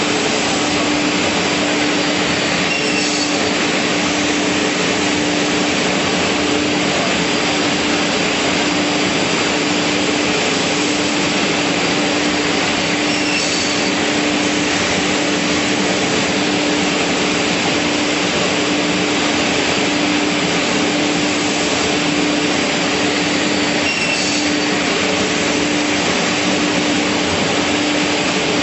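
Beam panel saw with 11 kW sawing units running: a steady rushing noise with a constant hum, and a faint short sound about every ten seconds.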